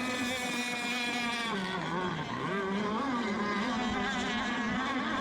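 RC racing boat engines running at high revs, a steady whine with a second tone that drops in pitch about two seconds in and climbs back up, as a boat eases off and powers through a turn.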